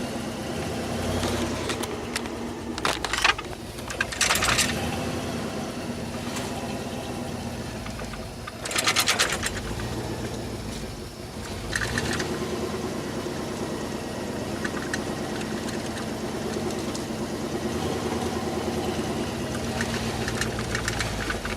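A vehicle engine running steadily at low revs, with a few short bursts of rushing noise in the first half.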